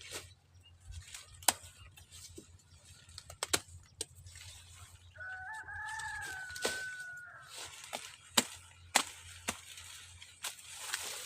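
A rooster crows once near the middle, one pitched call of about two seconds. Sharp snaps and knocks are scattered through, and the loudest of them stand out above the crow.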